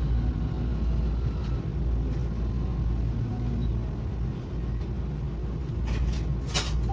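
Tokyu Setagaya Line 300 series tram heard from inside the car, a steady low rumble as it slows to a stop at a platform. A few sharp clicks come near the end.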